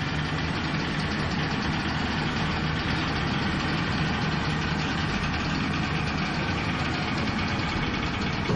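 Car ferry's engines and bow-ramp machinery running steadily and loudly as the ramp is lowered onto the quay, with a brief louder jolt at the very end as it lands.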